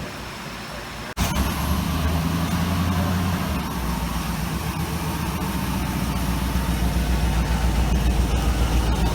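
Car engine idling with a steady, low, pulsing rumble that comes in abruptly about a second in.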